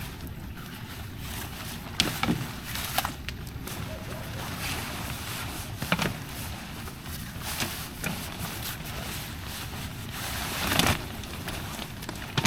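Canoe paddle strokes splashing in the river about every two seconds, over a steady hiss of rain and wind.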